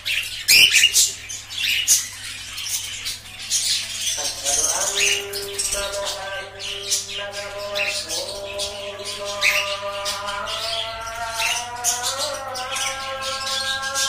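Caged birds chirping and squawking in quick short calls, with a louder squawk about half a second in, over slow music of long held notes.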